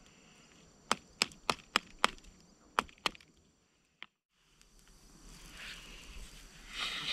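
Seven sharp knocks, about three a second with a short pause before the last two, from the hammer on a knife being struck. After a brief hush, a steady rushing noise rises toward the end.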